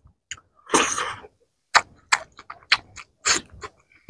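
Close-miked wet chewing of a mouthful of rice and fish curry: lip smacks and mouth clicks at irregular intervals, with a short breathy burst about a second in and another near the end.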